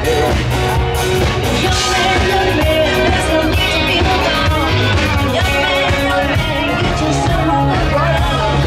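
Live band playing rock music with a singer, loud and steady.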